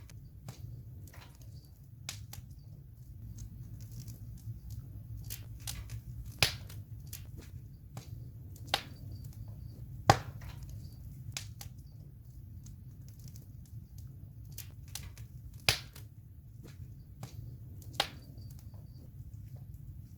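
Campfire burning: wood crackling with irregular sharp pops, a few of them much louder than the rest, over a steady low rumble.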